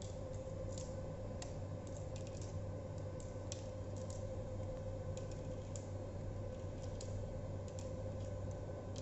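Scattered light clicks and taps as hands handle cables and a plastic spiral cable wrap on the stem of an electric bike, over a steady background hum.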